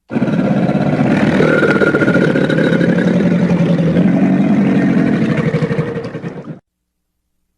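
Crocodilian bellow: one long, rough, low rumble lasting about six and a half seconds that cuts off suddenly.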